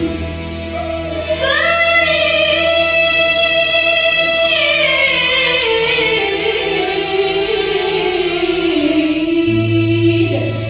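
A woman singing a long held note that swells in about a second and a half in, then slides slowly downward in ornamented phrases, over a steady low accompaniment.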